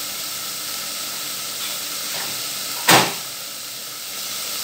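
Chicken sizzling steadily as it sautés in a pot on a gas stove. A single sharp knock or clatter comes about three seconds in.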